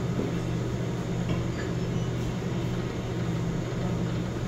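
Steady low hum with an even wash of noise: the machine and room noise around a video slot machine while its free spins play out.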